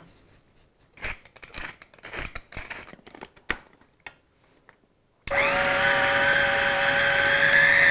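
A few light handling clicks and rustles, then about five seconds in an electric mini food chopper starts and runs steadily, whining as it purées white beans, broccoli and chives into a spread. Its pitch creeps slightly higher as it runs.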